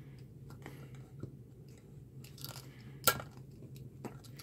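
Faint clicks and scrapes of a small precision screwdriver turning a tight screw that holds a metal stand leg to a circuit board, with one sharper click about three seconds in.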